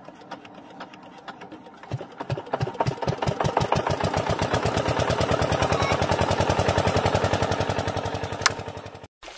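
Homemade toy tractor's motor-driven engine starting after a hand crank: a few separate thumps that quicken into a fast, even chugging, like a single-cylinder engine idling. A sharp click sounds near the end, just before it cuts off.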